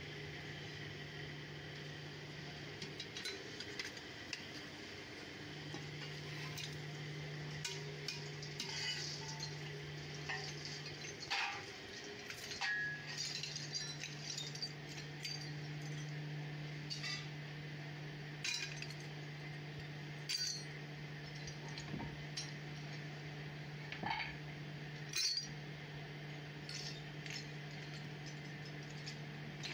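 Pieces of scrap aluminium clinking together as they are handled and loaded into a steel crucible, in irregular sharp clinks, over the steady hum of the furnace's electric blower.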